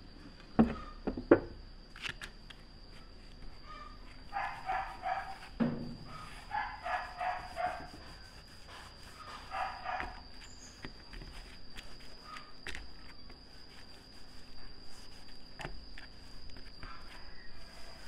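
Two sharp knocks about half a second apart near the start, then a dog barking in several quick runs of short barks in the background, with cloth rustling as a rag wipes stain onto wood. A steady high tone runs underneath.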